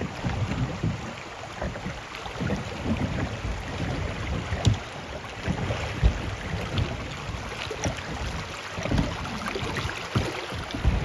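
Running river water with gusts of wind buffeting the microphone, heard from a kayak on the river. A few sharp knocks sound through it, the loudest about five and six seconds in.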